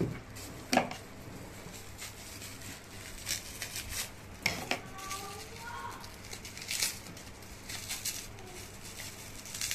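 Plastic wrapping crinkling and being cut with scissors, in scattered crackles and snips.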